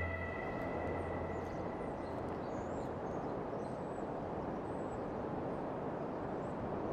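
Steady wind across a mountain ridge, an even rushing noise, with faint high bird chirps a few seconds in. The tail of a low music drone fades out at the start.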